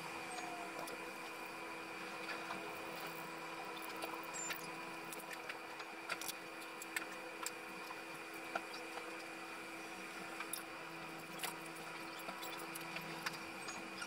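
Scattered small clicks and light taps of hands handling plastic and metal model parts and wiring, over a steady electrical hum.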